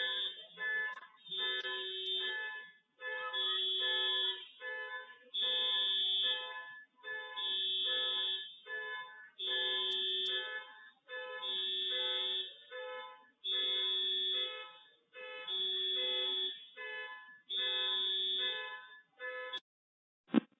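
An electronic alarm sounding the same pattern of steady tones over and over, one long note followed by a few short ones, about every two seconds. It stops near the end, followed by a single sharp click.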